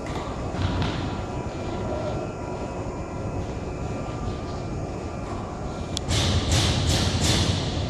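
The chain-driven spindle conveyor of a UV painting line runs with a steady mechanical hum and rumble. About six seconds in, sharp knocks start, two or three a second.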